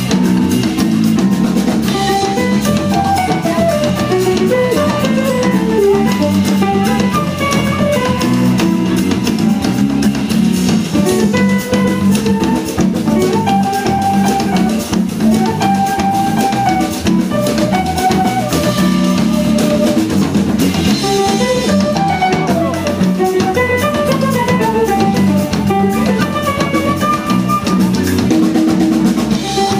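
A live instrumental Brazilian jazz band playing a baião: drum kit and hand percussion keep the groove under electric bass and keyboard, while a melody line moves up and down over them.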